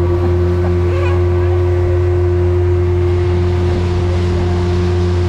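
Speedboat engine running steadily with a constant low drone, over a steady hiss of water.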